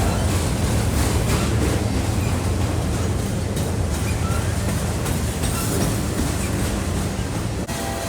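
A train rolling past with a steady rumble of wheels on rail, with a brief drop in sound near the end.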